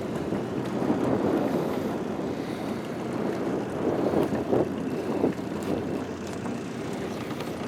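Steady rumbling noise of a small fishing boat under way, with gusts of wind buffeting the microphone, strongest about a second in and again around four to five seconds in.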